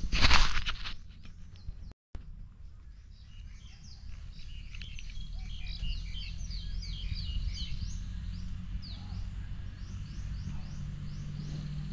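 Small birds chirping, many short high chirps in quick succession, thickest from about three to nine seconds in, over a low steady rumble. A brief loud burst of noise comes in the first second.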